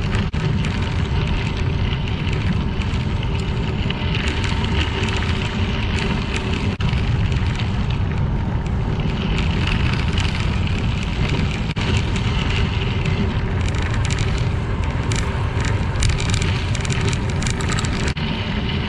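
Bicycle tyres rolling over a crushed-limestone trail surface: a steady rumble with a fine gravelly crackle.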